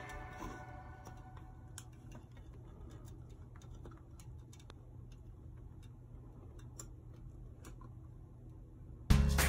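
Quiet room tone with a low steady hum and faint ticks, roughly two a second. Music cuts back in loudly near the end.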